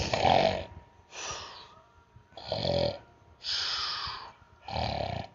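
A man snoring in mock: low rasping snores alternating with hissing breaths out, about one a second, acting as if knocked out cold.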